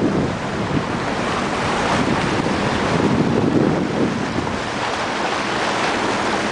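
Wind buffeting the microphone over the rush of water along a small boat's hull and wake as it moves across the sea, a steady, loud noise.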